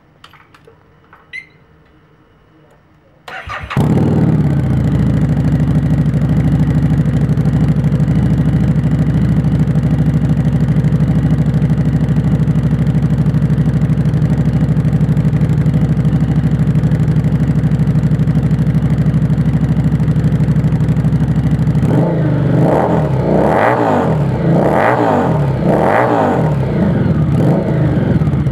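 Harley-Davidson XG750's 750 cc V-twin, breathing through a BSL Bomb Muffler aftermarket exhaust, starting about three seconds in after a few faint clicks and settling into a steady idle. Near the end it is revved in a few short blips and drops back to idle.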